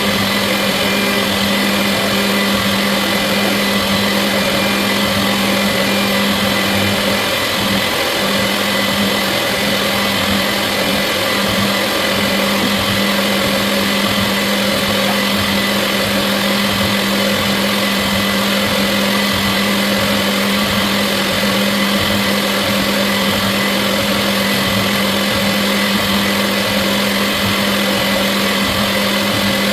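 CNC milling machine running steadily: a constant motor whine with a strong low hum beneath it, holding the same pitch and level throughout.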